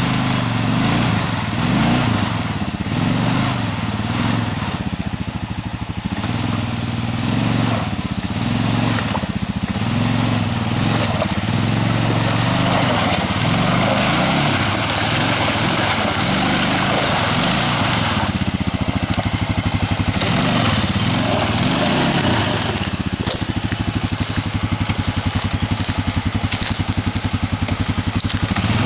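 Arctic Cat 454 ATV's single-cylinder four-stroke engine running under load off-road, its pitch rising and falling repeatedly as the throttle is worked, with a steady rushing noise over it.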